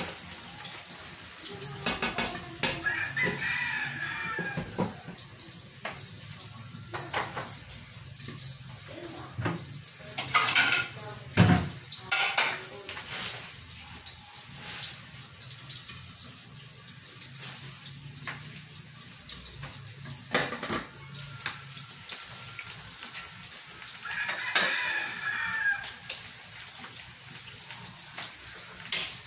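Cooking at a stovetop: a metal ladle scraping and clinking in a stainless steel pan of vegetables, and pan lids knocking against the rims, over a steady frying sizzle. A rooster crows twice in the background.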